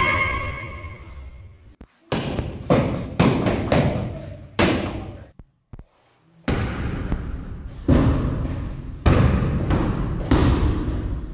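Taekwondo kicks striking a handheld kick paddle: a series of sharp smacks about one to one and a half seconds apart, each ringing on briefly in the hall. There is a short break about halfway.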